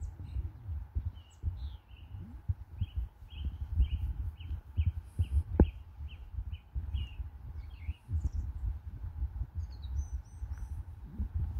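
Birds calling: a run of short, evenly spaced chirps, about three a second, with other higher calls near the end, over a steady low rumble and one sharp knock about halfway through.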